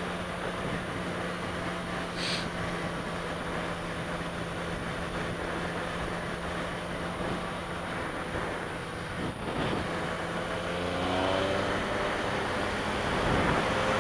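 Motorcycle engine running at a steady cruise under a rush of wind noise. About ten seconds in, the engine note rises as the bike accelerates, and the noise grows louder.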